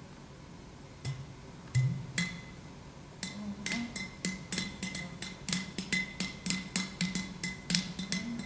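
Clay pot drum played by hand: a few separate strokes, then from about three seconds in a fast, even rhythm of about five strokes a second, each with a low note and a bright ring above it.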